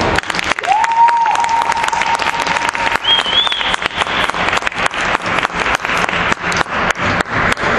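Small audience applauding in distinct, separate claps that thin out toward the end, at the close of a figure skating program. A long whistled note comes about a second in, followed by a shorter, higher whistle.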